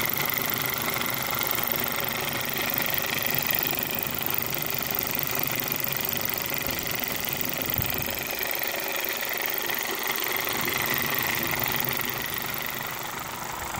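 Miniature model steam engine with a chain drive running fast: a rapid, steady mechanical clatter with a hiss over it. The clatter thins out somewhat in the second half.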